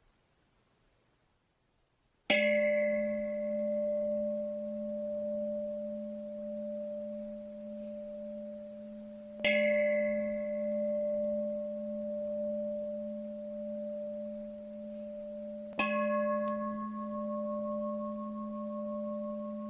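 A meditation bell struck three times, about seven seconds apart, each strike ringing on in steady tones that fade slowly until the next; the three strikes mark the end of the meditation sitting.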